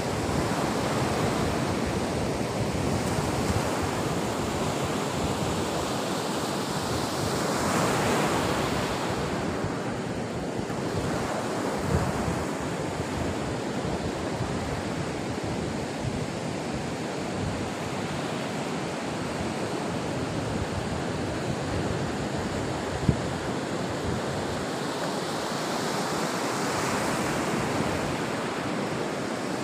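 Ocean surf breaking on the beach, a steady rush that swells louder as a wave comes in about eight seconds in and again near the end, with two brief knocks.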